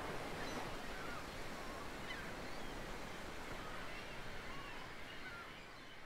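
Sea surf washing on a rocky shore with seagulls calling many times in short cries over it, the whole slowly fading toward the end.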